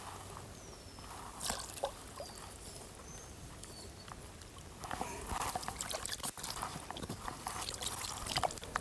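Water sloshing, splashing and dripping as a crucian carp is put into a keepnet in the water, busier and louder over the second half.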